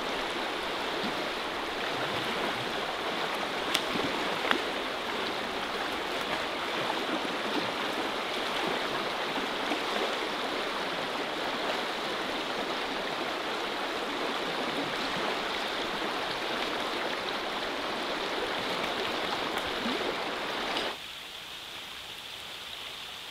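Steady rush of a fast-flowing river running over rocks, with two short sharp clicks about four seconds in. Near the end the rush drops suddenly to a quieter level.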